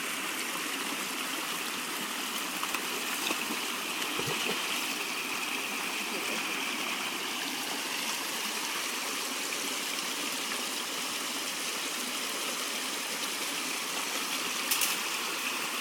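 River water flowing and trickling steadily, with a faint knock about four seconds in and another near the end.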